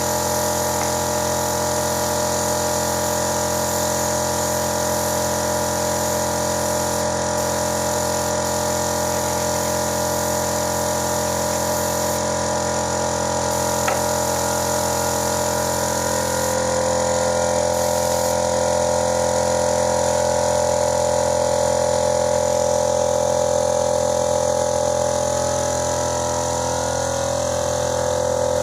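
Small electric air compressor for spray painting, running steadily with a constant hum; its tone shifts slightly about halfway through.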